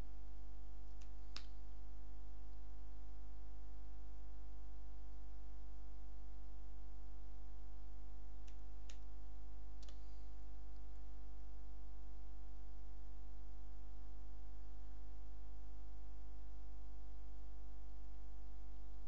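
Steady electrical mains hum from the recording setup, with a few sharp computer-keyboard key clicks: two about a second in and two more near the middle.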